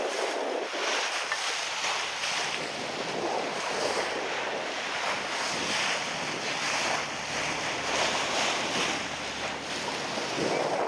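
Water rushing and splashing along the bow of a boat under way, surging up and down in loudness, with wind buffeting the microphone.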